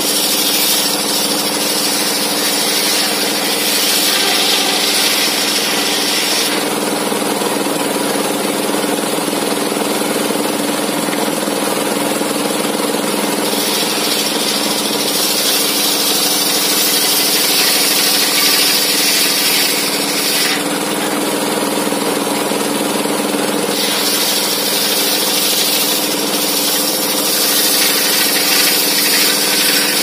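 Large circular saw blade of a homemade sawmill table spinning with a steady drone, ripping timber into beams. Three times the blade cuts through the wood for several seconds, adding a higher hissing rasp over the drone: at the start, about a third of the way in, and about three-quarters of the way in.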